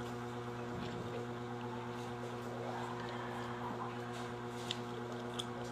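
A steady, even low hum, machine-like, with a couple of faint sharp clicks near the end.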